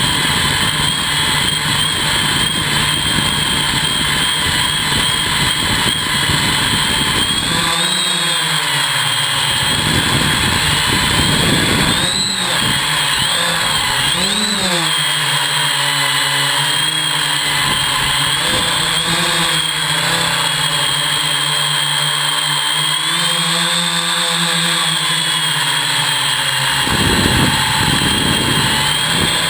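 Hexacopter's electric motors and propellers whining steadily in flight, the pitch rising and falling as the motors speed up and slow down. A low rushing air noise covers the start and returns near the end.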